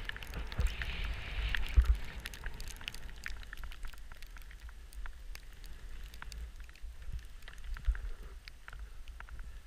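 Skis sliding over snow: a hiss in the first two seconds, then scattered crackles and ticks of snow, over a low rumble of wind on the microphone with a thump about two seconds in.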